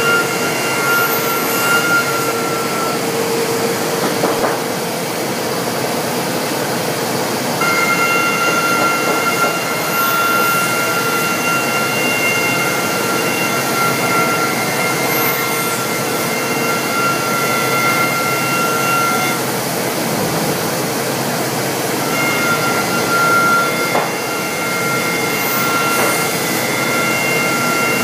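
Pade CNC machining center cutting wooden chair components: a loud, steady rushing machine noise with a high steady whine that drops out twice and comes back.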